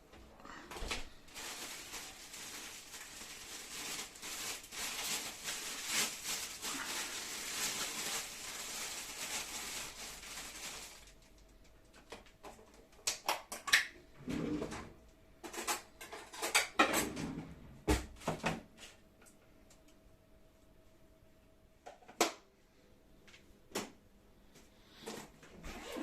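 Kitchen handling sounds: a steady rushing hiss for about ten seconds that cuts off suddenly, then scattered knocks, clicks and clatters of drawers and dishes.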